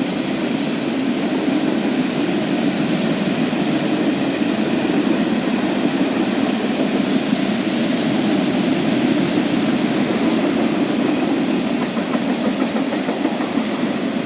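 Norfolk Southern freight train rolling past, a steady noise of wheels on rail.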